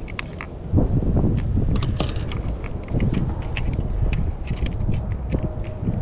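Scattered small clicks and rattles of parts and tools being handled on a Redcat Kaiju RC truck, over an uneven low rumble.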